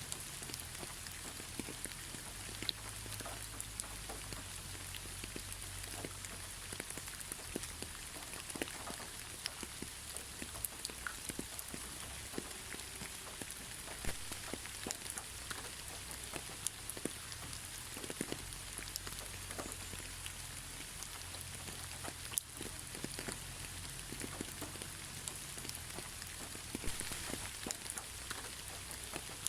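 Steady gentle rain with no thunder, a continuous hiss with scattered close drips and drops ticking on surfaces.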